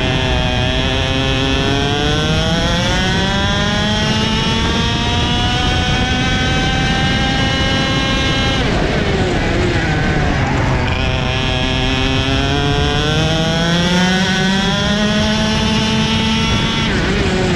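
KZ shifter kart's two-stroke engine at racing speed, heard onboard. Its pitch climbs steadily and holds along the straight, then falls away with braking and downshifts about eight and a half seconds in. It climbs again under acceleration and drops once more near the end.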